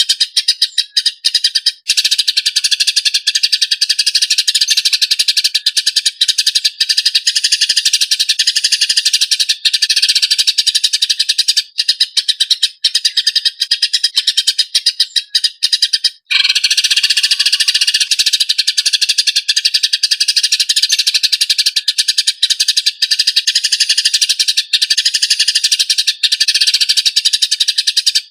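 Eurasian tree sparrows chirping in a fast, harsh, unbroken chatter: the squabbling calls of fighting sparrows. There is a very brief break about 16 seconds in.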